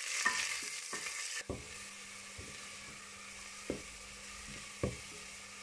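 Sliced onions sizzling as they brown in hot olive oil on high heat in a stainless steel pot, stirred with a wooden spatula that knocks against the pot a few times. The sizzle is loudest for about the first second and a half, then drops to a fainter hiss under a low steady hum.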